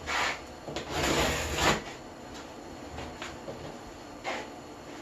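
Handling noises from a bucket being worked on: a short scrape at the start and a longer rubbing scrape about a second in, then a few light knocks.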